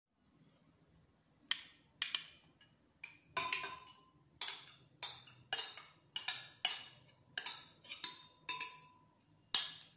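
Ice cubes dropped one at a time into a glass blender jar, about a dozen sharp clinks, a few leaving a brief glassy ring.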